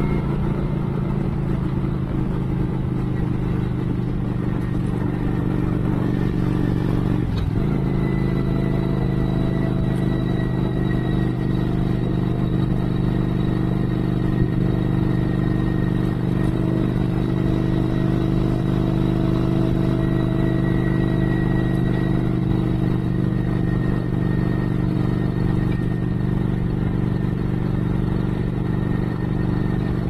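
Cruiser motorcycle engine running at a steady cruising speed on the road, with a brief dip about seven seconds in.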